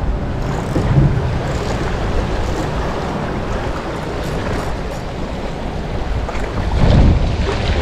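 Wind rumbling on the microphone over small waves lapping at a shallow shoreline, with a louder gust about seven seconds in.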